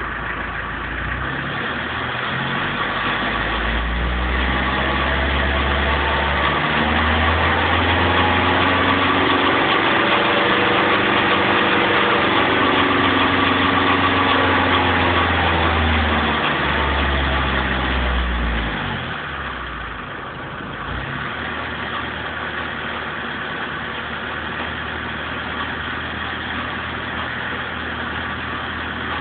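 BMW 318 tds's 1.7-litre four-cylinder turbodiesel engine revving up from idle and held at higher revs for most of the time. Near two-thirds of the way in it drops back to a steady idle.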